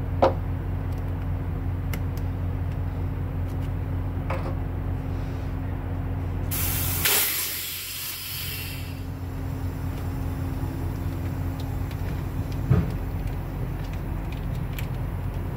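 Compressed air hissing out of the air line to a truck's air-suspension air spring for about two seconds, a little past the middle, as its air fitting is released. A few small clicks from handling the fitting, over a steady low hum.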